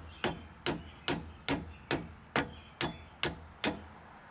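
Small hammer tapping repeatedly on side cutters gripping the cotter pin at the centre of a Jeep Wrangler's front hub, working the pin out: about nine sharp metal-on-metal taps, a little over two a second, evenly spaced.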